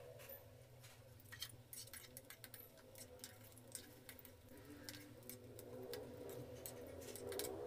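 Moong dal fritters frying in oil in a kadhai, giving faint scattered crackles and pops while a ladle stirs them, over a steady low hum.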